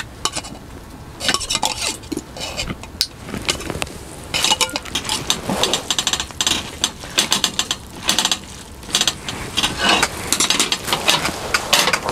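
Utensils clattering and scraping against dishes during food preparation, in quick irregular runs that grow busier about four seconds in.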